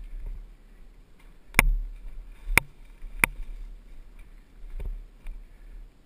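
Sharp knocks and clunks from a dirt bike jolting down a steep, rocky trail over a low rumble. There are four loud ones, the first about one and a half seconds in and the last near five seconds.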